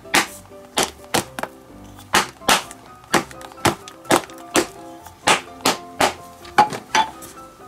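Wooden bat striking the pocket of a leather baseball glove again and again: sharp thwacks about two a second, working the glove into shape after its fingertip lace has been retightened. Soft background music runs underneath.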